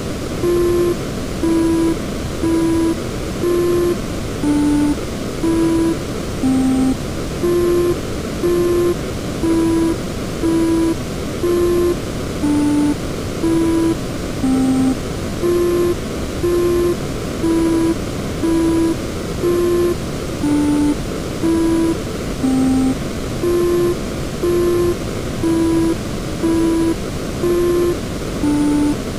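A series of electronic beeps, about one a second, each about half a second long and stepping between a few pitches, over a loud steady static-like noise. It is a wordless break in an electronic song.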